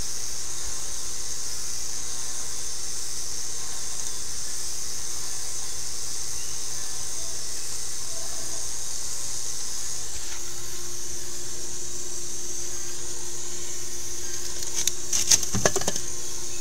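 A machine running steadily, a hiss with a low hum that grows stronger about two-thirds of the way in. A few knocks near the end.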